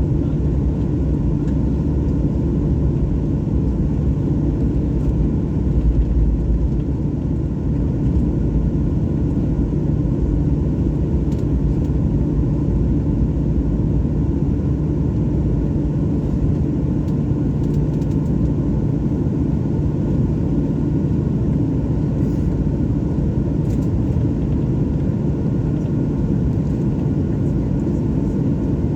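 Jet airliner engines running with a steady, unbroken low rumble and a faint steady hum.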